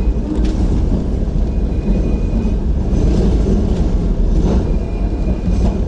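Hong Kong double-decker tram running slowly around a curve, heard from on board: a steady low rumble from the running gear, with a few clicks from the wheels on the rails and a faint high wheel squeal that comes and goes.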